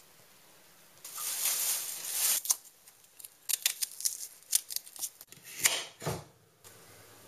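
Stout poured from a bottle into a casserole pan, a hiss of liquid lasting about a second and a half, followed by a run of sharp clicks and knocks of bottles and utensils being handled.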